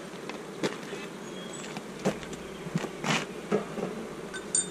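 Honey bees buzzing steadily around an opened wooden hive, with about six sharp wooden knocks and clunks as hive boxes and frames are handled.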